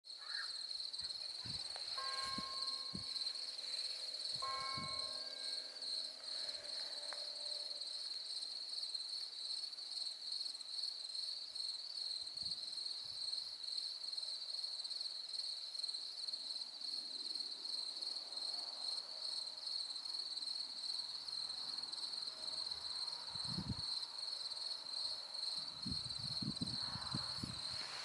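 Night crickets chirping in a dense, steady, high-pitched chorus with a fast pulsing trill. Two pitched tones of about a second each are heard faintly underneath, about two and four and a half seconds in.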